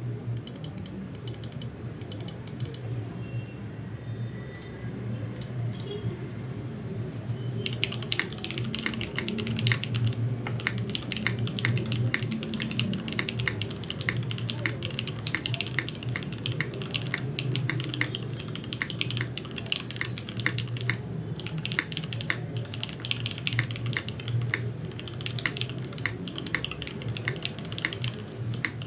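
Typing on a Nuxros Krush65 R2 mechanical keyboard with lubed Cherry MX Hyperglide Black linear switches, GMK Maestro keycaps, and an aluminium top-mount plate with no foam. A few scattered keystrokes at first, then fast, continuous typing from about a quarter of the way in.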